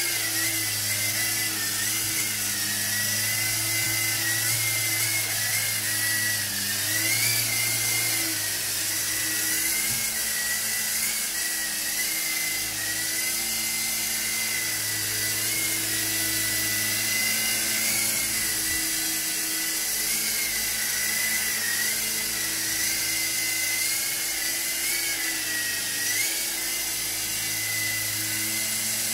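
Small Silverlit RC toy helicopter's electric rotor motors running in flight, a steady high whine with a low hum beneath that wavers slightly in pitch now and then.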